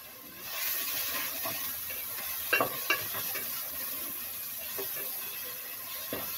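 Onions and ginger-garlic paste sizzling in oil in a metal pot while a slotted spatula stirs them. The sizzle swells about half a second in as the stirring starts, and the spatula knocks against the pot twice in quick succession near the middle.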